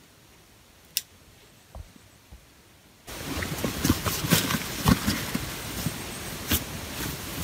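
A backpack being handled and opened: fabric rustling with many clicks and knocks, starting suddenly about three seconds in after a quiet stretch with a single sharp click.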